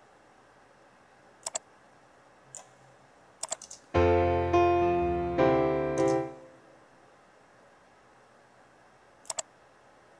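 Virtual grand piano (Pro Tools Mini Grand) playing back a recorded MIDI piano part: three chords about four seconds in, ringing for about two seconds and dying away. A few short mouse clicks come before and after, one pair near the end.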